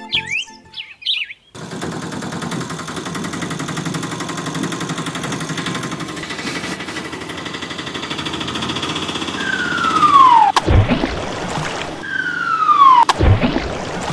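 Cartoon sound effects: a steady, dense layered sound, then twice a falling whistle that ends in a loud boom.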